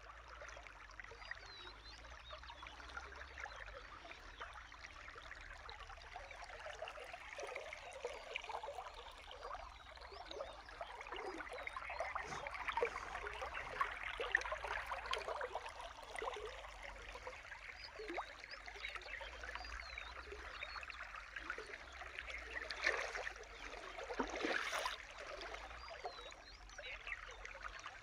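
Small stream of water trickling steadily, a little louder around the middle and near the end, with faint high bird chirps now and then.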